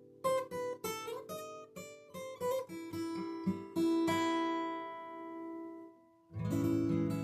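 Solo acoustic guitar: a run of quick picked notes, then notes left ringing and dying away almost to silence, followed near the end by a strummed chord.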